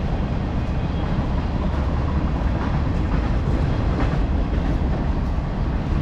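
A train passing close by, giving a steady, continuous low rumble.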